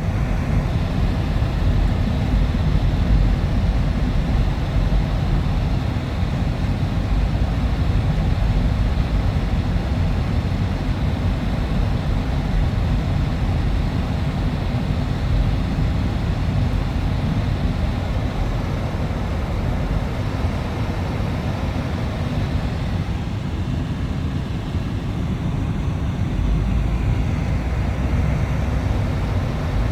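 Steady low rumbling noise with a fainter hiss above it, no distinct events.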